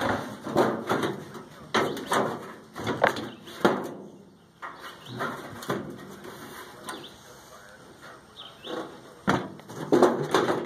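Irregular knocks and rattles of sheet-metal casing and parts being handled and pried at while a microwave oven is taken apart, with a brief lull partway through.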